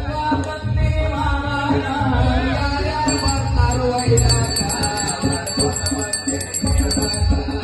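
Indian devotional music with drumming, with a small bell rung rapidly over it from about three seconds in until shortly before the end.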